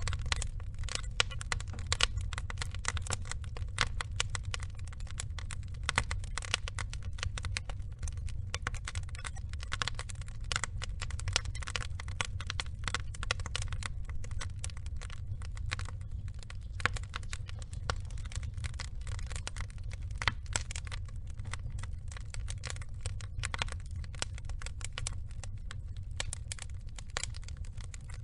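Wood logs burning in a fire: dense, irregular crackling with occasional louder pops, over a steady low rumble.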